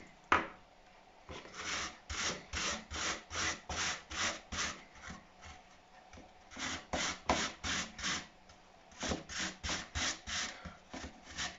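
Peeled apple being grated on the coarse holes of a metal box grater: runs of rasping strokes, about three a second, broken by short pauses. A single sharp knock comes just after the start.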